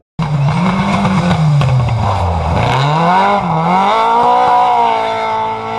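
Rally car engine under hard acceleration, its pitch dropping and climbing again through gear changes, then holding a high steady note near full revs. The sound starts abruptly after a brief gap at the edit.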